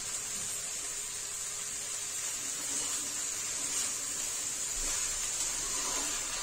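Chopped okra frying in hot oil in a steel kadhai, giving a steady sizzling hiss while it is stirred.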